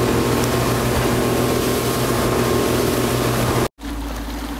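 Motorboat engine running steadily over wind and water noise; near the end it cuts off abruptly, giving way to a lower rumble of wind and water.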